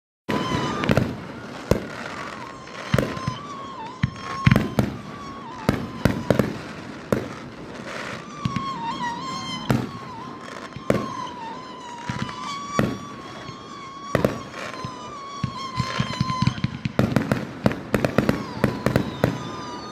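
Fireworks display: sharp bangs of bursting shells about a second apart, turning into a rapid string of bangs near the end, with a steady, slightly wavering tone underneath.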